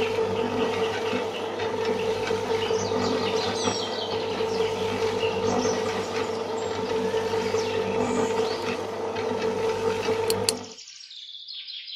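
Small electric motor of a miniature toy concrete mixer running steadily and turning the drum through its gear, a constant whirring hum. It is switched off near the end and stops suddenly.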